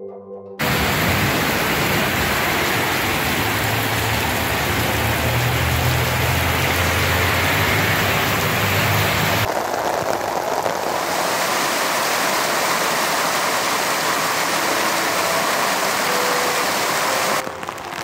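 Heavy downpour: a loud, steady hiss of rain, with a low rumble under it in the first half. The sound starts abruptly under a second in and changes character about halfway and again near the end.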